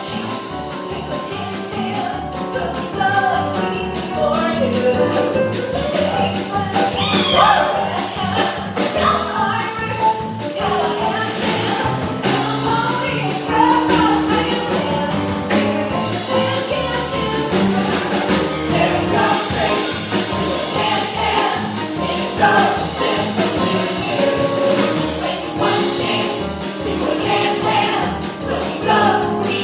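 Upbeat show music with several voices singing together over a steady beat.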